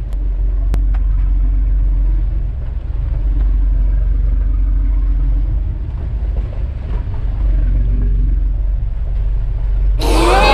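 Steady low rumble of a fishing boat running under way. Near the end comes a short, loud squealing sound whose pitches slide up and down.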